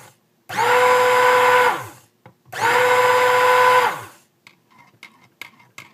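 Stick blender pulsed twice in cold-process soap batter, each run about a second and a half with the motor pitch dropping as it spins down, then a few light clicks near the end as the blender head knocks against the container. The batter is being blended toward trace and is still fluid.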